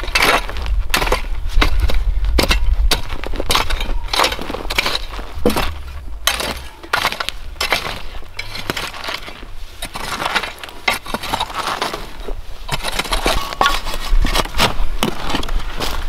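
Steel garden rake scraping and dragging through loose soil and dry twigs in repeated crunching strokes. Near the end, a shovel digging into the soil.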